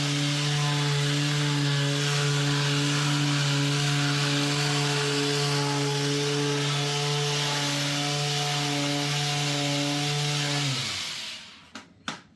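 Electric power tool running steadily on wood, then winding down with a falling pitch about eleven seconds in; a few light knocks follow.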